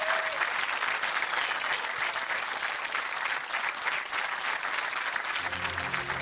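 Audience applauding with dense, steady clapping. About five seconds in, sustained low instrumental chords begin under the applause.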